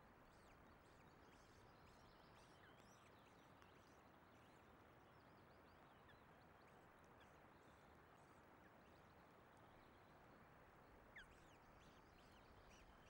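Faint, high cheeping of osprey chicks being fed, in short rising chirps that come in clusters near the start and again near the end, over a steady hiss of wind and rain.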